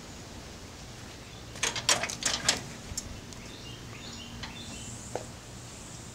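A quick run of five or six sharp clicks and knocks about two seconds in, over a steady low hum, followed by a few faint high chirps like a small bird's.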